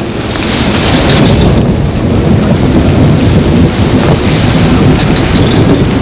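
Loud, steady wind noise on the microphone mixed with rustling of tall grass and leaves as people push through the undergrowth.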